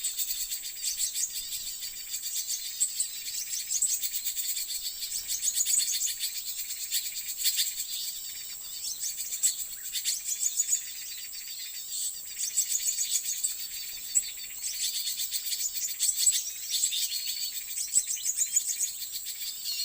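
White-eyes (pleci) chirping rapidly and continuously in dense high twitters, over a steady high-pitched insect buzz.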